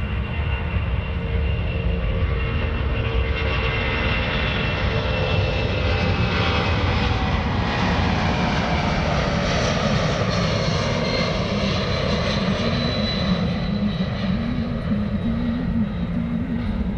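Boeing C-17 Globemaster III's four Pratt & Whitney F117 turbofan engines at takeoff power as it lifts off and climbs away: a steady loud jet noise with whining tones that slide lower in pitch as it goes past.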